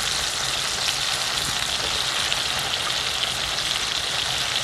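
Meat sizzling on a hot iron griddle over a wood fire: a steady, dense frying hiss with fine crackles of fat and juices, the meat still cooking.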